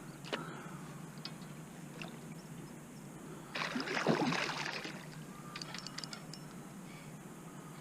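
Water splashing at the surface for over a second, starting about three and a half seconds in, as a hooked carp is drawn towards the landing net. A few faint clicks and knocks come before and after it.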